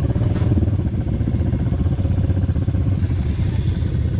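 ATV engine running steadily while riding, its fast even firing beat heard throughout.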